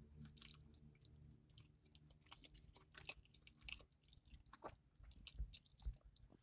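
Quiet, close-up chewing of a mouthful of sandwich: irregular wet mouth clicks and smacks. Near the end there are a couple of low thuds as another bite is taken.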